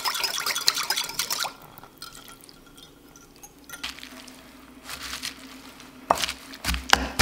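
Vinaigrette poured from a small bowl onto shredded cabbage, with a utensil scraping the bowl, for about the first second and a half. After a quieter stretch of tossing, wooden salad spoons knock against the glass bowl several times near the end.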